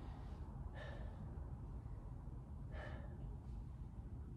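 A man's breathing during a lying leg-raise exercise: two short exhales, about a second in and about three seconds in, over a low steady background rumble.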